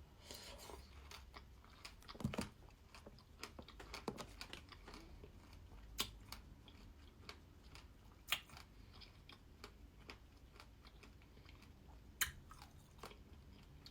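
Faint close-miked chewing of lavashak fruit leather and pomegranate seeds: soft wet mouth sounds, with a few sharp clicks scattered through.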